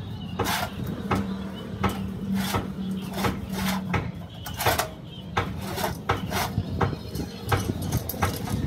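Irregular knocks and metallic clinks from hand work on metal parts, a few a second, over a steady low hum.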